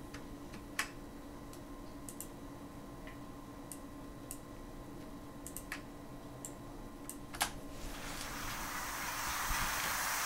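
Scattered computer mouse and keyboard clicks at an editing workstation. From about eight seconds in, a high hiss fades in and grows louder, its low end cut away: a sound clip played back through a high-pass EQ so that only its high part remains.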